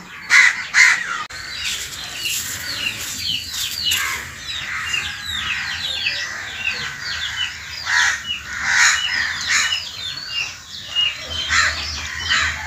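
Chicks peeping continually in quick, short, high chirps. A few louder calls from another bird cut over them about half a second in, around eight to nine seconds, and near the end.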